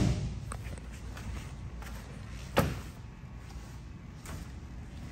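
The echo of a pickup's tailgate slamming shut dies away, followed about two and a half seconds in by a single sharp knock, over faint handling noise.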